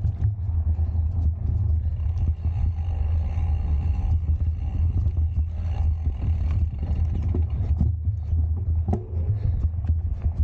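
Mountain bike ridden over rough ground: a steady low rumble with a constant patter of clicks and rattles from the bike.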